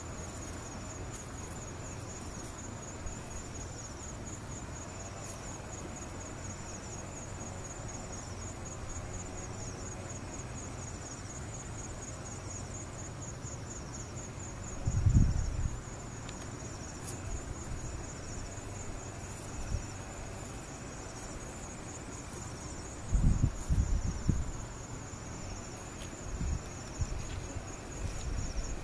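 Insects trilling in a high, fast, even pulse that runs on without a break, over a low background rumble. A low thump about halfway through and a cluster of louder low thumps near the end.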